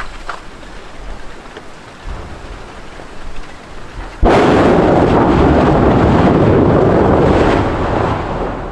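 Mount Etna erupting: a loud blast begins suddenly about four seconds in and rumbles on for about four seconds before fading near the end, over steady wind noise.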